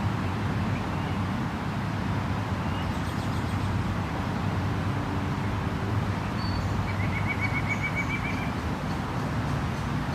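A small songbird gives a couple of high chirps, then a rapid, even trill of about ten notes a little past the middle. Under it runs a steady outdoor rush with a low hum.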